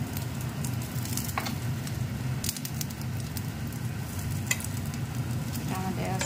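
Egg-dipped bread slices frying in oil in a frying pan: a steady sizzle, with a few sharp clicks of a metal spoon and spatula against the pan.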